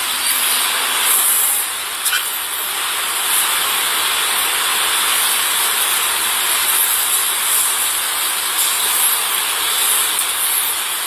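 Steady, even hiss picked up by a police body camera's microphone.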